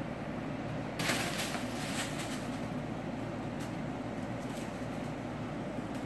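Steady hum of a window air conditioner, with a brief rustle about a second in and a few faint ticks as a cat plays with toys.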